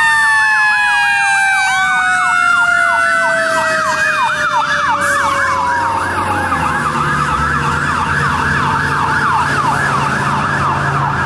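Fire truck sirens sounding together: a fast yelp sweeping up and down about three times a second, over a long wail that slowly falls in pitch. A truck engine rumbles low beneath them, stronger in the second half as the rescue truck comes close.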